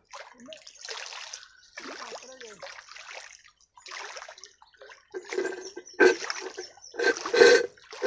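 Water splashing and sloshing in a series of short, irregular bursts, growing louder in the last three seconds.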